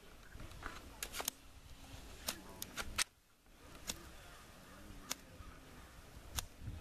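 About ten sharp, short scrapes and clicks at uneven intervals, made by hands working a small tool on the ground, with a brief gap about three seconds in.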